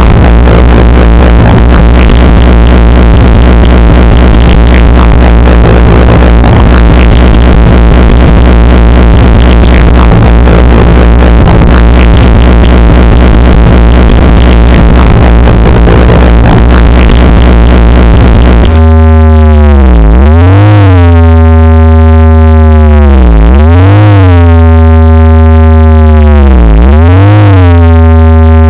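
Very loud computer-synthesized tones meant as the sound of a moon. A dense, harsh drone over steady low hums cuts abruptly, about two-thirds of the way in, to a single buzzy tone that swoops down in pitch and back up again and again.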